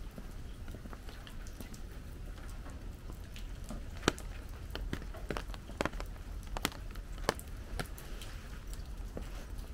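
Light rain: irregular raindrop taps close by, a few sharper and louder in the middle, over a low steady rumble.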